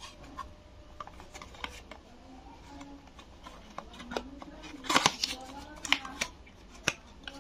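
A thin paperboard bulb box being handled and its tuck flap pried open: a run of scraping, tapping and crinkling, with the sharpest snaps of card about five, six and seven seconds in.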